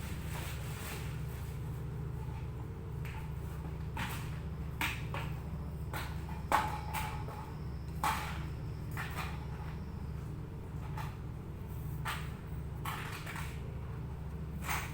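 Irregular sharp clicks and knocks, about a dozen, over a steady low hum; the loudest knock comes about six and a half seconds in.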